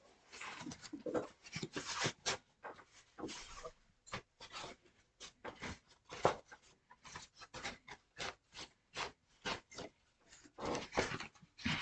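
Packaging being handled and pulled open by hand: short irregular crinkling and rustling noises with brief pauses between them.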